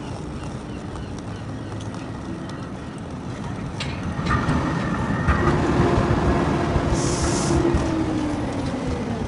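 Street noise, then a tram pulling in alongside the platform about four seconds in: a steady electric whine over a low rumble, growing louder, with a short hiss about seven seconds in.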